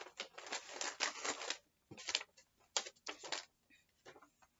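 Crinkly snack packaging being handled as a snack box is unpacked: a dense rustling for about the first second and a half, then several short separate crinkles.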